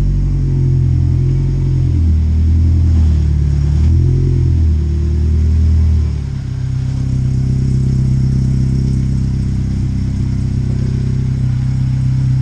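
Chevy Cobalt SS's supercharged four-cylinder engine running, rising and falling in pitch a couple of times under light throttle, then settling to a steady idle about six seconds in.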